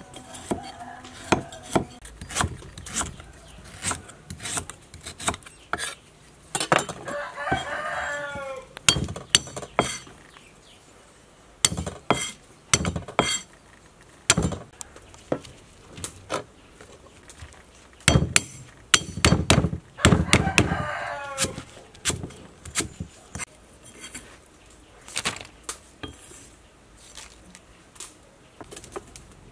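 Large kitchen knife chopping galangal and garlic on a chopping board: sharp, irregular chops with pauses between. A rooster crows twice, about 7 seconds in and again about 20 seconds in.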